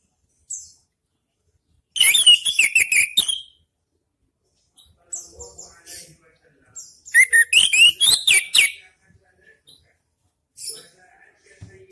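Orange-headed thrush (anis merah) singing loudly in separate phrases of fast, high whistled notes and quick pitch sweeps, with short pauses between them.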